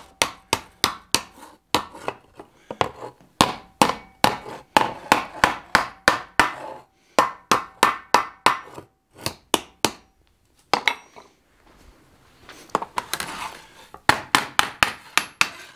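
Hand hammer, worked with its cross peen, striking thin 14-gauge sheet steel over a swage block and anvil, about three sharp blows a second. The blows stop for a few seconds past the middle, leaving only a faint hiss, then resume in a quick run near the end.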